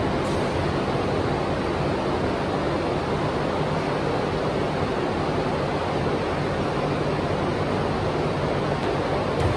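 Steady, even rushing noise with no distinct knocks, voices or pitched sounds.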